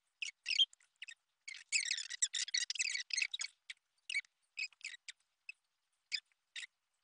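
Rustling and crinkling of tissue paper and a clip-lock plastic tub being handled, a dense stretch of rustling about two seconds in, then scattered short crackles.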